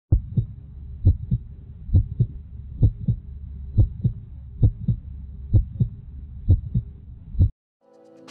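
Heartbeat sound effect: a low lub-dub double thump a little under once a second, about nine beats over a faint hum, stopping abruptly near the end.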